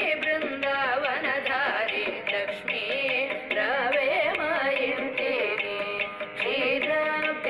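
Background music: a South Indian classical-style devotional song, with a voice whose pitch sweeps and wavers in ornamented turns over instrumental and light percussion accompaniment.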